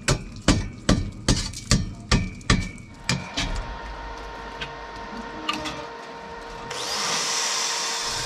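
Hammer blows in an even rhythm, about two and a half a second, stopping about two and a half seconds in. A steady machine hum follows, joined near the end by a loud rushing whir.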